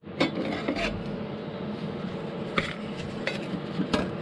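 Thin sheet-steel repair panels clinking and tapping against the van's floor as they are handled and fitted into place: a few sharp metallic knocks over a steady low hum.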